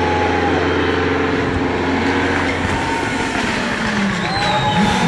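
Audi Quattro rally car's turbocharged five-cylinder engine running hard as it approaches, its note falling about four seconds in as it slows into a tight bend, then picking up again near the end.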